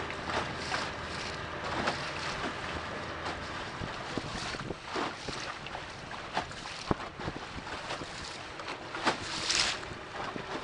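Wooden motorboat running across choppy river water: the hull slaps and splashes irregularly on the waves over the steady hum of its engine, with wind buffeting the microphone. The biggest splash comes about nine seconds in.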